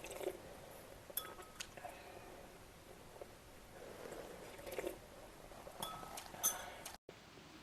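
Cutlery clinking against a plate several times, short sharp ringing taps, the loudest near the end, with soft eating sounds between.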